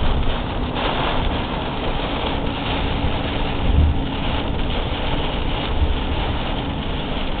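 Steady driving noise inside a car in heavy rain: road and engine rumble under an even hiss of rain, with a low rumble swelling a little about four seconds in.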